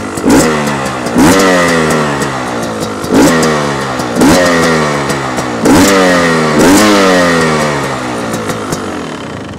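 2025 Beta 250 Xtrainer's single-cylinder two-stroke engine, warmed up, revved in three pairs of quick throttle blips: each rises sharply and falls back to idle. It settles to idle near the end.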